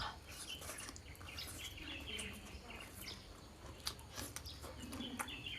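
Faint chickens clucking and small birds chirping, with scattered light clicks over a steady low hum.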